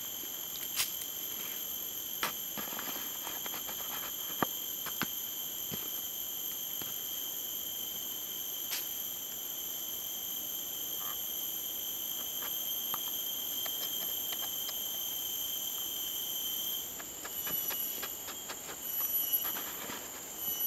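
Forest insects singing: several steady high-pitched tones held together, which turn into a pulsing, broken trill about three-quarters of the way through. Scattered light clicks and rustles sound over the chorus.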